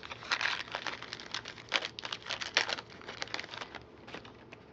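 Trading-card pack wrapper crinkling and cards being handled, a quick run of crisp rustles that thins out near the end.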